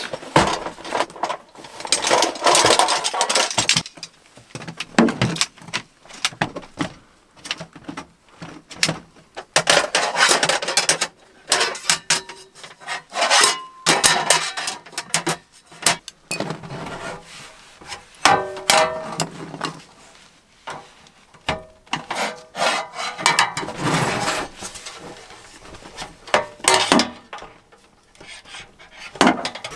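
Gloved hands handling and setting up a folding metal camp table: irregular rubbing and rustling with sharp clicks and knocks as the legs and frame are fitted and set down.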